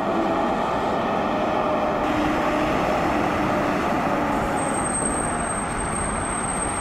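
Fire truck's diesel engine running steadily, a loud even noise. A faint high whine joins it about two-thirds of the way through.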